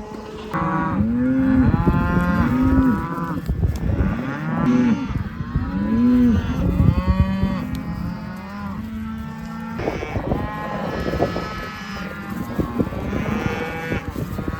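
Cattle bawling, many overlapping moos one after another, loudest in the first half, over a steady low hum.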